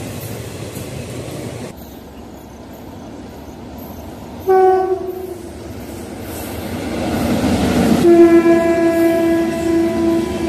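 Train coaches rolling past. Then an approaching electric locomotive sounds its horn: one short blast about halfway through, then a long steady blast from about eight seconds in, while the rumble of the train grows louder.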